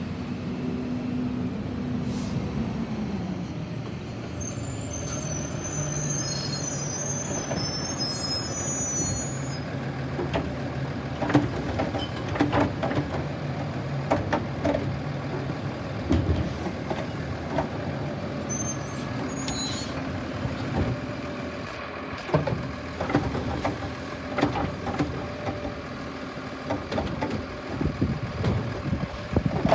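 Automated side-loader garbage truck pulling up with its engine running and an air-brake hiss, then its mechanical arm lifting and emptying a wheeled trash cart, with repeated clanks and bangs from about ten seconds in as the cart is shaken out and set back down.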